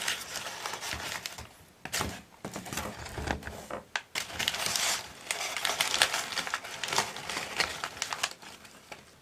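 Parcel packaging being handled: irregular crinkling and rustling with many small sharp clicks and taps.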